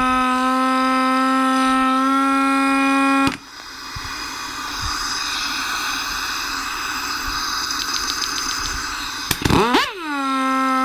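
Air impact wrench motor free-spinning with a steady high whine without the trigger pulled, the sign of a failed throttle bushing. The whine cuts off about three seconds in, leaving a hiss of air. Near the end, after a few sharp clicks, the motor spins back up with a rising whine to the same steady pitch.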